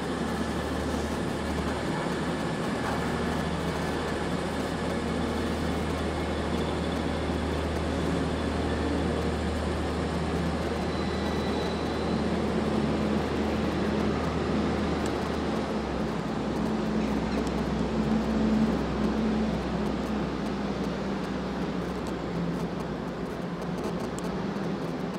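Class 185 diesel multiple unit's engines running with a steady low drone as the train moves slowly. The drone weakens about two-thirds of the way through.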